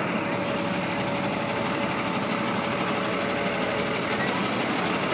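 An engine idling steadily, unchanging throughout.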